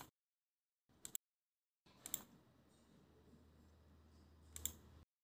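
A handful of sharp computer-mouse clicks, spaced irregularly, against near silence with a faint low microphone hum.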